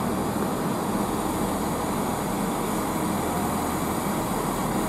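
Class 165 Networker Turbo diesel multiple unit running steadily as it moves slowly along the platform, its underfloor diesel engines giving a steady low drone.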